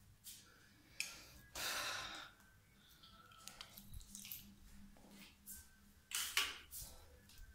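Quiet handling and movement sounds in a small tiled bathroom: a sharp click about a second in, a short rush of rustling noise just after, and another cluster of clicks and rustling about six seconds in.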